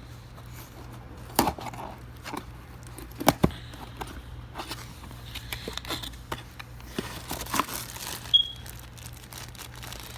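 Packaged fireworks being handled: packaging crinkling and rustling, with scattered light knocks and clicks as the packs are moved, over a faint steady low hum. A brief high squeak sounds near the end.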